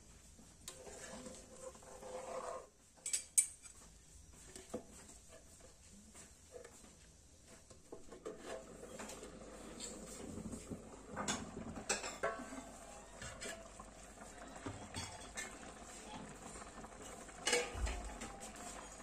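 Steel plate lid and steel ladle clinking and scraping against a steel kadai, with a few sharp metal clanks: the loudest about three seconds in, more around eleven to twelve seconds and near the end. Under them is a faint steady simmer of the curry bubbling in the pan.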